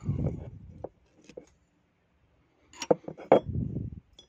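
Small metal parts of a GM12F carburettor clinking against the aluminium carburettor body as it is handled, with a few sharp clicks about three seconds in and low rubbing noise of hands turning it.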